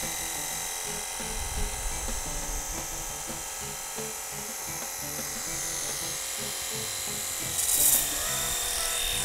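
Cordless 18V battery pressure washer running, its motor and pump giving a steady whine while water sprays from the fan nozzle. The spray hiss rises in a brief louder burst about eight seconds in.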